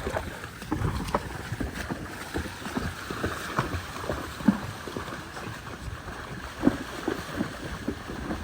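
Water splashing and sloshing in irregular bursts at a flooded ford, with wind buffeting the microphone.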